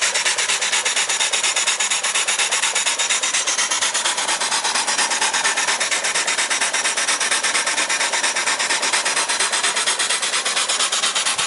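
Steam engine fed by a vertical boiler, running steadily: a fast, even beat of exhaust chuffs over a continuous steam hiss.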